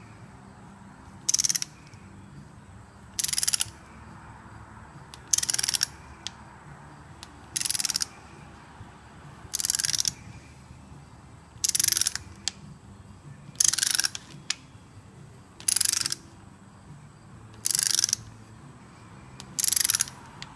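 Ratchet wrench clicking in about ten short, rapid runs, one every two seconds, as the handle is swung back between pulls. The wrench is tightening a harmonic balancer's centre bolt, which is drawing the balancer further onto the crankshaft snout.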